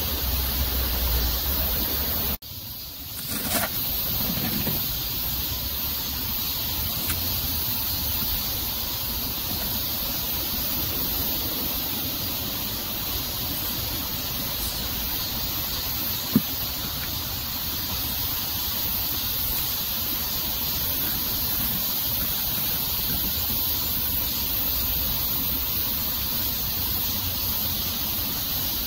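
Steady outdoor background hiss with no clear single source. It briefly drops out about two and a half seconds in, and a single sharp click comes about 16 seconds in.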